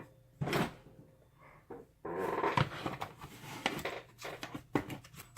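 Hand tools being handled at a workbench: rustling and scraping, the longest stretch about two seconds in, then a run of short, sharp metallic clicks as a clip remover is worked on a lock.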